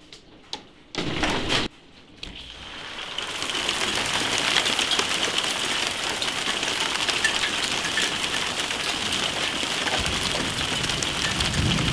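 Hail falling hard onto a wooden deck and patio furniture: a dense, steady patter of fine ticks that fills in about three seconds in, after a few sharp clicks and a brief rush of noise.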